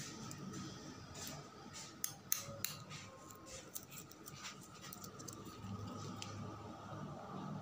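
Steel surgical instruments clicking and clinking as they are handled, with a quick run of sharp metallic clicks about two seconds in. A faint steady hum lies underneath.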